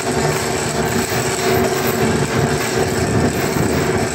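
Steady drone of running machinery with a constant hum-like tone over rough noise.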